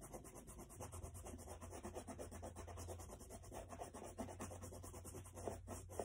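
A stick of chalk rubbed quickly back and forth on paper, a faint, even run of scratchy strokes as a heavy band of colour is laid down.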